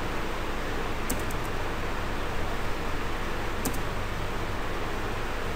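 Steady background hiss with a few light computer-keyboard keystroke clicks: a small cluster about a second in and a couple more past three and a half seconds.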